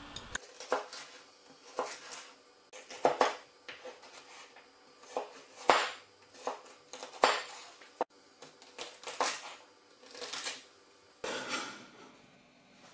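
Chinese cleaver slicing celery stalks into strips on a wooden cutting board: irregular crisp cuts and knocks of the blade on the board, about one a second. Near the end comes a longer scrape as the cut strips are gathered up on the blade.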